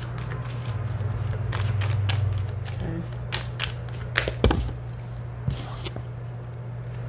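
A deck of tarot cards being shuffled by hand: a run of quick papery flicks and riffles, with a few sharper snaps of the cards about four to four and a half seconds in, over a steady low hum.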